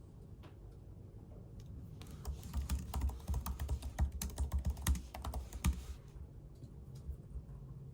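Typing on a computer keyboard: a fast run of key clicks for about four seconds in the middle, with a few single clicks before and after, over a low steady hum.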